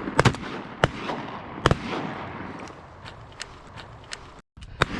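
A volley of shotgun shots from several hunters firing at mallards: four sharp blasts in quick succession within the first two seconds, each ringing out across the water.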